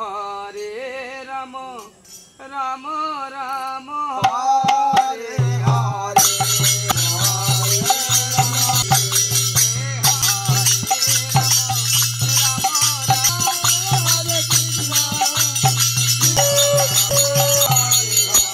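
Men singing a folk song. About five or six seconds in, fast jingling hand cymbals and beats on a khol barrel drum join in over a steady low drone, and the music carries on to the end.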